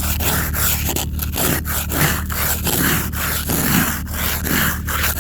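Plastic ice scraper scraping thick ice off a car windshield in quick repeated strokes, about two to three a second.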